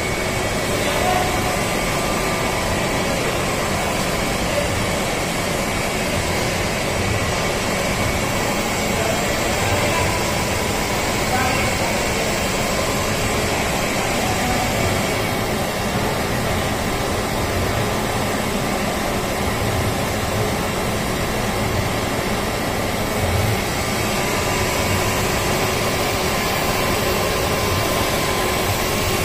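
PVC pipe extrusion line running: steady machine noise with several constant whining tones layered over it.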